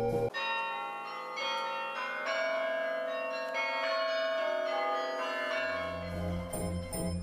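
A run of ringing bell tones, one note entering after another and ringing on together: a game's chime for a right answer. The low organ-like background music drops out at the start and comes back about five and a half seconds in.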